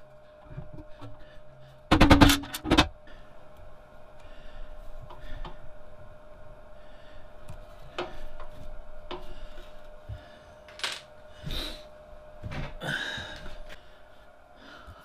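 Cast stepped belt pulleys being handled and fitted onto a pillar drill press head: a quick cluster of loud metal clanks about two seconds in, then scattered lighter knocks and clinks as the pulleys are seated.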